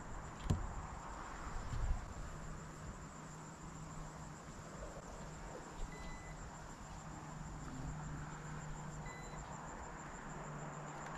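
Insects chirring steadily in the background, a thin high even drone, with a single sharp knock about half a second in.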